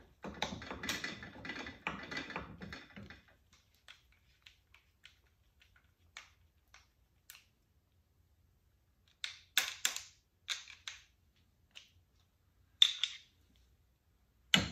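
A screwdriver tightening a screw on a chrome-plated Hurst shifter body, with metal scraping and rattling for about the first three seconds. Then scattered light metallic clicks and short clusters of clacks as the plated steel shifter assembly is handled.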